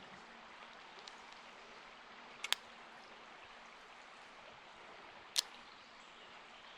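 River water running steadily, with two sharp clicks about three seconds apart.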